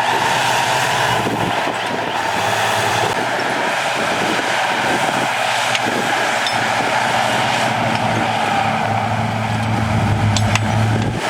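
Heavy diesel earthmoving machinery running steadily under load, with a constant mechanical whine above the engine note and a couple of sharp clanks near the end.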